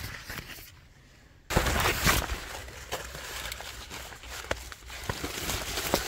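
Footsteps and rustling as someone pushes through corn plants, with dry corn stalks and leaves crackling underfoot. A brief near-silent gap falls about a second in.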